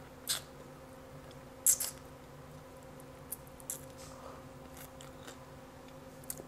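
Close-up eating sounds: scattered crisp bites, crunches and mouth clicks as a piece of deep-fried catfish is bitten and chewed, the loudest crunch a little under two seconds in.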